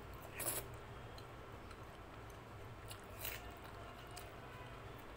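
Close-up eating sounds of rice and dal eaten by hand: wet chewing and squishing, with two louder mouth smacks about half a second in and just after three seconds.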